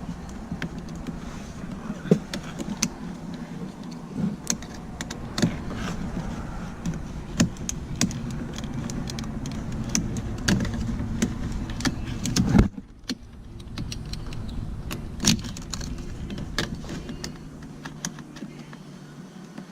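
Scattered clicks, taps and light rattles of plastic door trim and a hand tool being pried and handled around a car door's lock switch, over a steady low hum. A sharper clatter comes about twelve seconds in.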